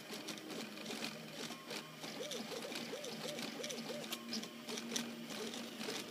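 RepRap Mendel 3D printer's stepper motors whining as the print head moves back and forth. The pitch rises and falls with each short stroke, about four a second for a stretch in the middle, over a steady lower hum and scattered light clicks.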